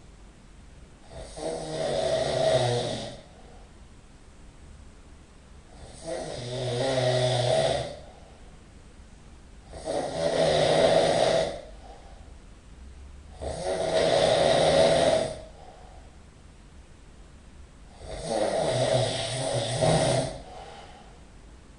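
A person snoring loudly in regular rhythm: five rattling snores, each lasting a second or two, about one every four seconds, with quieter breathing between them.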